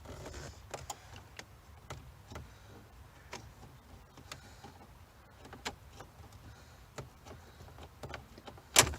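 Light, scattered clicks and knocks from a truck's plastic dashboard parts being worked apart by hand, with one sharp, loud click near the end.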